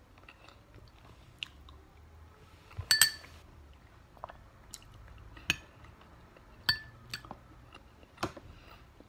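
A metal spoon clinks against a glass bowl several times, each clink short with a brief ring; the loudest comes about three seconds in. Soft chewing is heard in between.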